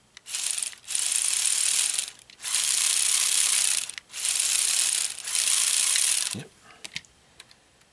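Plastic gears and track links of a Lego Technic Extreme Adventure drivetrain clattering in four bursts as the driveline is run with the model lifted off the floor, turning the model V8's pistons.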